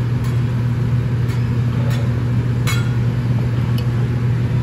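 A steady low machine hum from the restaurant, with a few light metal clicks, about one a second, from the chef's spatula on the teppanyaki griddle as he works an egg. The loudest click comes a little past halfway.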